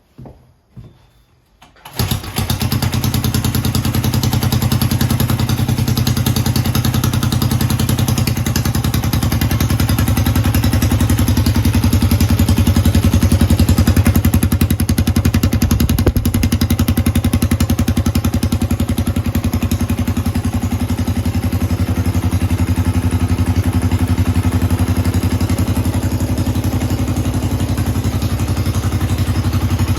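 A chopper mini bike's small engine catching abruptly about two seconds in, then running steadily.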